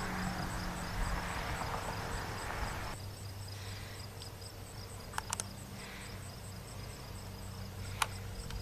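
Insects chirping in a steady, even pulse, about three chirps a second. A noisy rushing hiss underneath stops abruptly about three seconds in, and a few sharp clicks come around the middle and near the end.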